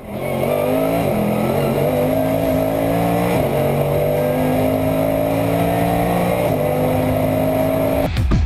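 Race car engine heard from inside the cockpit, accelerating hard with its pitch climbing through the gears and dropping at three upshifts. Loud music cuts in near the end.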